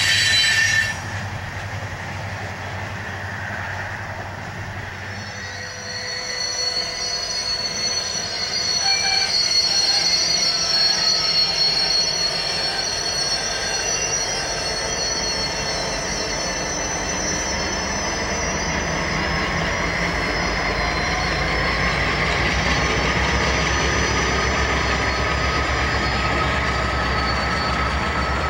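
Loaded coal hopper cars rolling by with high-pitched wheel squeal. Then the diesel locomotives at the rear of the train pass with a low engine rumble, which carries on as they move away. A brief loud burst of noise comes in the first second.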